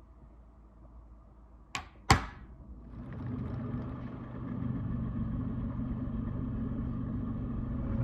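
Two sharp knocks, the second louder, each with a short ringing tail, then a motor-driven machine starts about three seconds in and runs steadily.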